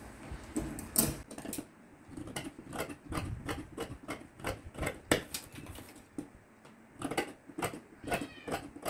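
Dressmaking shears cutting through folded black fabric along a paper pattern: a run of crisp snips, two or three a second, with a short pause about six seconds in.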